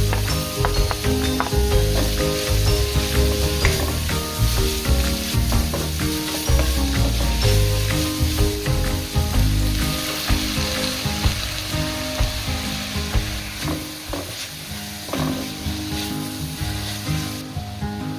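Sliced vegetables sizzling in a hot oiled pan as they are stir-fried, with a wooden spatula scraping and clicking against the pan.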